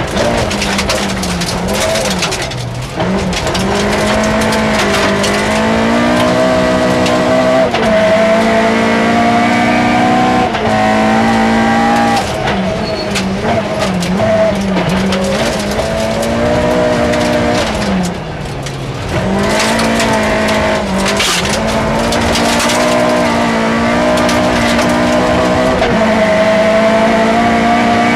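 Toyota Starlet rally car's engine heard from inside the cabin, held at high revs and climbing slowly under full throttle, with sharp drops in pitch about three seconds in, around twelve seconds and near eighteen seconds as the driver lifts, brakes and shifts down before accelerating again. Gravel ticks and rattles against the car throughout.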